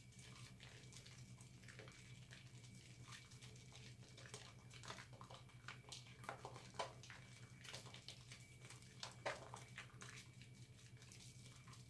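Faint wet squishing and crackling of soapy hands kneading and lathering a wad of recycled soap scraps, with a few louder squelches in the middle. A steady low hum sits underneath.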